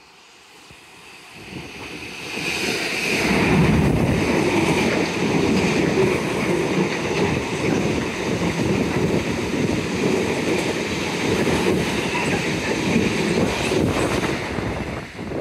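Diesel freight train passing close: the sound builds to loud within the first three seconds as the Freightliner locomotive arrives, then a long rake of bulk tank wagons rolls past with a steady rumble of wheels on rail.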